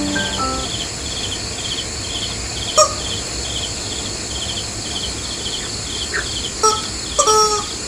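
Crickets chirping in an even rhythm, about two trilled chirps a second, over a steady high insect hiss. There are a few brief louder sounds about 3 seconds in and near the end.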